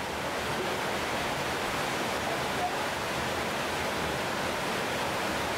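A steady, even rushing hiss with no pitch and no separate events, holding one level throughout.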